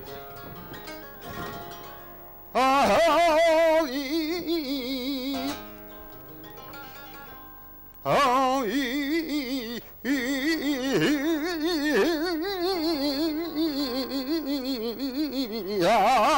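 Flamenco singing: a man's voice in wavering, drawn-out melismatic phrases, one short phrase about three seconds in and one long phrase from about eight seconds on. Acoustic guitar plays under the voice and alone in between.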